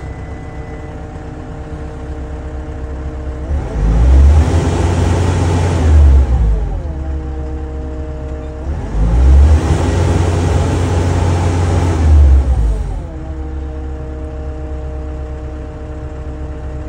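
Cummins diesel engine of a JLG 1255 telehandler idling steadily, then revved up twice: it rises about three and a half seconds in, holds, drops back to idle near seven seconds, then rises again for about four seconds before settling back to idle.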